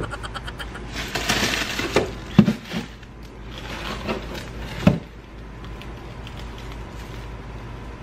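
Handling noises: a rustle, then a few sharp knocks and clunks, over a steady low hum.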